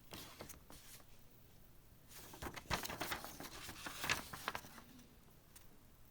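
Paper and packaging rustling and crinkling as they are handled, with a few light clicks early on and a burst of crackly rustling from about two to five seconds in.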